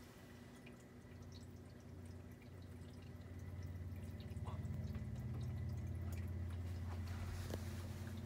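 Aquarium hang-on-back filter running: a steady low motor hum with water trickling and dripping from its outflow. The hum grows louder about four seconds in.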